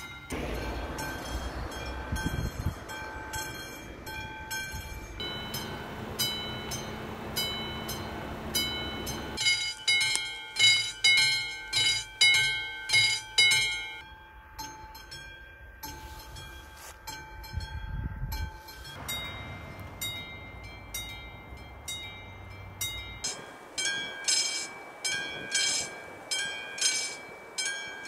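Slovak level-crossing warning bells ringing in fast, evenly repeated strokes, changing abruptly every few seconds from one crossing's bell to another's. Some stretches have a low rumble under the bells, with a train passing.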